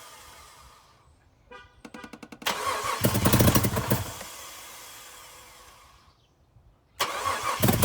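2005 Jeep Grand Cherokee's 3.7 L V6 being cranked and catching briefly with a loud burst, then fading out. It fires loudly again near the end. The exhaust is disconnected, and the engine starts but will not keep running.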